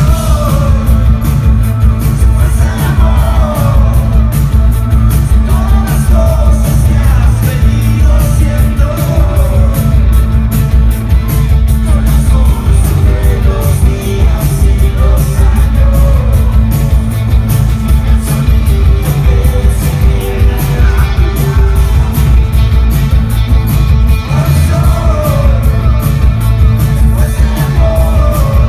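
Live rock band playing loud: electric guitar, keyboards and drums under a sung lead vocal.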